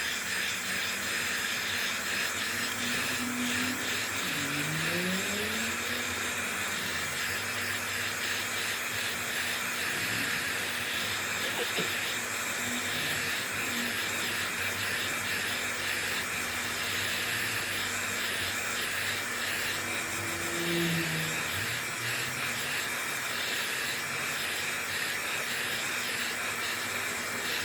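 Heat gun blowing hot air: a steady hiss of fan and rushing air, used to soften the adhesive under a phone's back glass.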